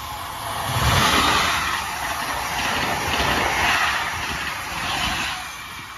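Amtrak Acela high-speed electric trainset passing the platform at speed: a steady rush of wind and steel wheels on rail. It swells to its loudest about a second in, holds while the cars go by, and fades near the end.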